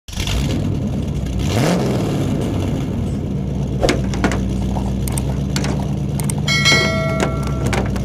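Bulldozer engine sound effect running steadily with a brief rising rev about a second and a half in. Several sharp clicks follow, then a bright ringing chime lasting about a second near the end.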